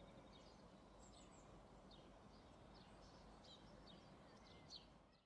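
Faint outdoor ambience: small birds chirping again and again over a low steady background rumble, fading out at the end.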